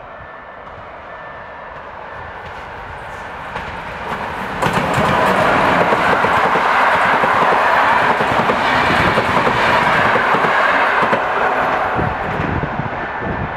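An express passenger train hauled by an EP09 electric locomotive passes through the station at speed. A rumble grows as it approaches, then loud wheel and coach noise with clickety-clack sets in about four and a half seconds in as the carriages go by.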